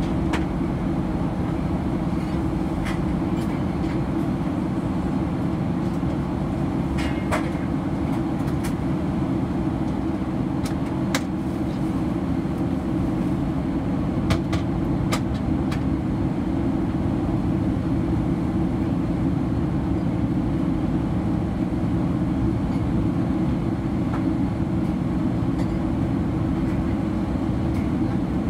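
Steady low roar inside the cabin of a Boeing 737-900, from its jet engines and the air rushing past the fuselage, with a few faint clicks now and then.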